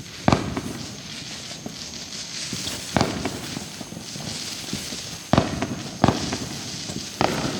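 Consumer fireworks going off: five sharp bangs at uneven gaps of about one to three seconds, the last three close together.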